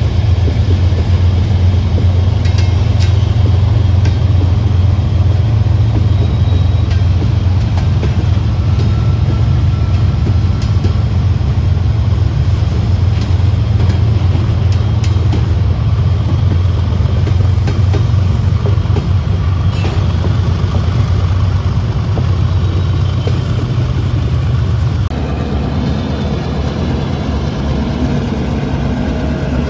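A double-stack intermodal train rolls past at close range, with steady rumble and scattered clanks from wheels and couplers, and the low engine drone of a mid-train diesel locomotive strongest in the first half. About 25 s in the sound cuts abruptly to a quieter BNSF diesel road-switcher locomotive's engine running.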